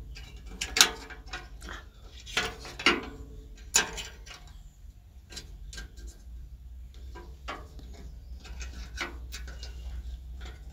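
Metal clicks and knocks from the Outbacker Firebox stove's steel door as its glass window panel and retaining frame are handled and fitted. A few sharper knocks come in the first four seconds, then lighter, scattered ticks.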